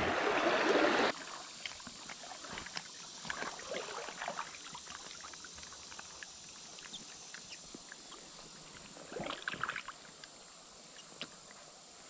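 Water splashing close by for about the first second as a small bass is let back into shallow rapids. Then a quieter steady river murmur follows, with scattered light clicks and small splashes that bunch together near the end.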